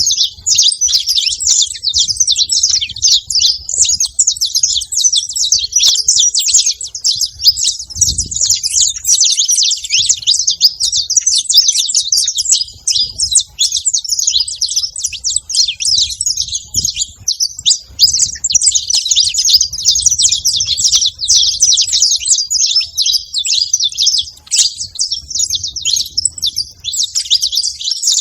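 Saffron finch singing: a continuous stream of rapid, high chirps and trills with hardly a break.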